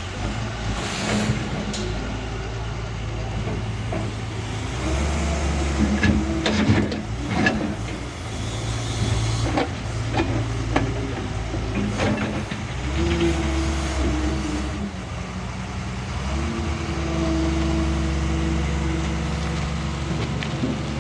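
Doosan DX140 wheel excavator at work: its diesel engine runs steadily and swells several times as the hydraulics take load, with a few clanks and scrapes of the bucket along the way.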